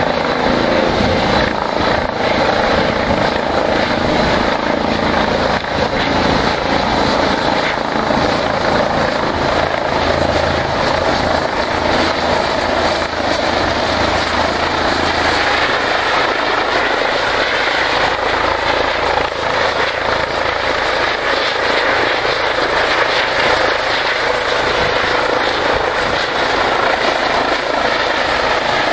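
Airbus EC135 twin-turbine air-ambulance helicopter hovering and descending on approach: steady rotor and engine noise with a thin, high turbine whine that rises slightly about halfway through.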